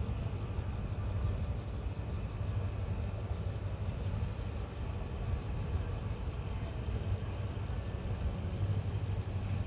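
Steady low rumble of a running vehicle, even throughout with no revs or changes.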